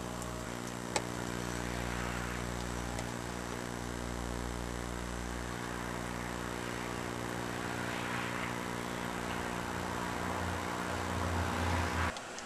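A steady low hum made of several held tones, like a motor running, with a single sharp click about a second in. The hum cuts off abruptly just before the end.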